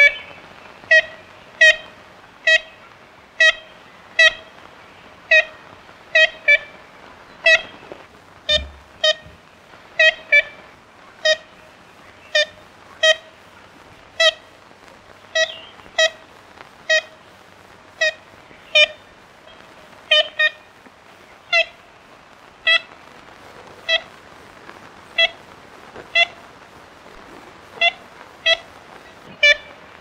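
Ivory-billed woodpecker giving its nasal, tin-horn-like 'kent' calls: short single notes about once a second, now and then doubled, over a steady hiss.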